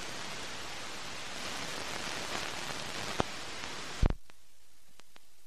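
Steady hiss of FM radio dead air after the station's sign-off, with a faint click about three seconds in. About four seconds in a loud pop cuts the hiss, leaving a much fainter noise.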